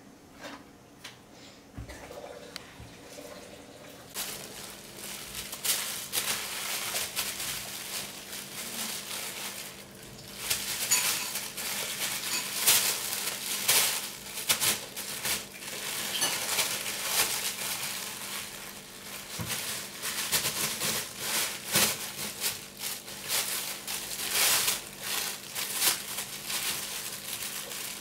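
Plastic bag crinkling and rustling in irregular crackly bursts as two kittens wrestle on it, starting about four seconds in.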